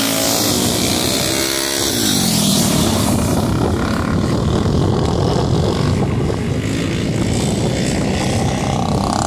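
Modified racing lawnmower engines running hard on the track. The pitch drops as one goes past at about two seconds, then several engines blend into a dense, rough racket.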